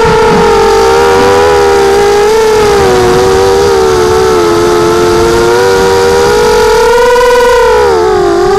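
Hexacopter's six small brushless motors (Tiger MN1806-2300kV) whining in flight, the pitch rising and falling with the throttle; near the end the whine sags lower and then climbs back up as power is added again.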